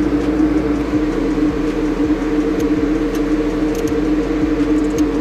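Steady mechanical hum from a running machine, with a few faint clicks from a socket ratchet being worked on the AC compressor's mounting bolts.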